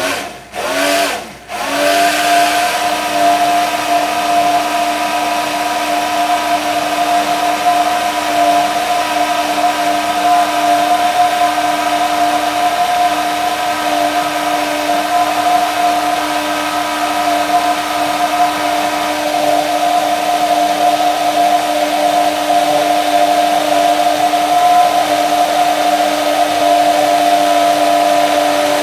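Hand-held immersion blender in a glass of egg mixture, switched on in two short bursts, then run steadily while sunflower oil is poured in a thin stream. It is emulsifying the eggs into mayonnaise.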